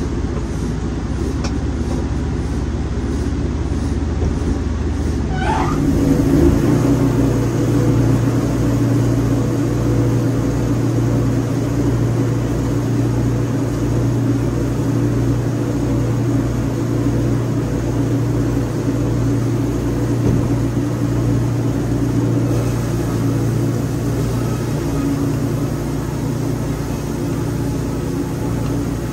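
Wood-Mizer LT40 portable band sawmill running steadily, sawing through a log. About six seconds in there is a rising whine and the sound grows a little louder, then it settles into an even run with a low, regular pulsing.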